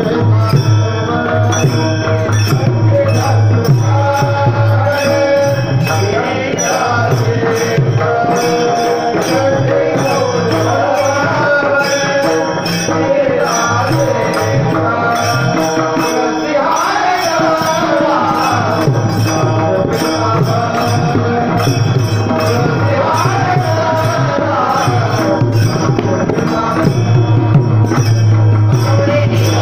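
Marathi devotional bhajan (panchpadi) sung by a melodic voice, with a hand drum and jingling percussion keeping a steady beat.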